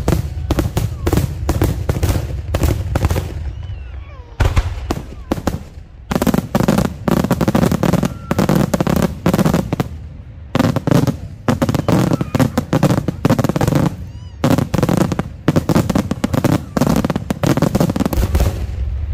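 Daytime aerial fireworks: shells and crackers go off in rapid, dense volleys of sharp bangs and crackling reports, broken by a few short lulls.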